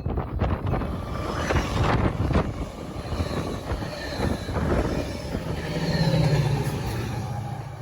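Rail vehicle rolling along the track with rapid clanking and rattling, and a few brief faint high wheel squeals. A low hum swells about six seconds in.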